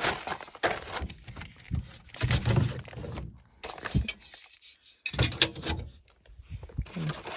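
Irregular thuds, knocks and scuffing of a person crawling and moving about in a cramped crawl space.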